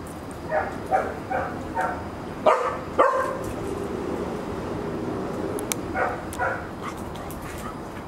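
Golden retriever puppy barking in short, high yips: a quick run of four, then two louder barks about half a second apart, then two more a few seconds later.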